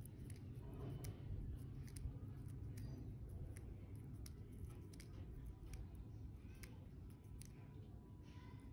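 Scattered soft clicks and ticks as fingertips peel melon seeds one by one off wet skin, over a low background rumble.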